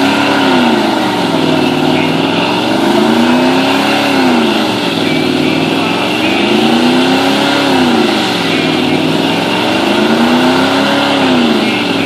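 Chevrolet Z71 pickup truck doing a long burnout: the engine is held at high revs, its pitch swelling and sagging about every four seconds, over the steady hiss and squeal of the spinning rear tyres.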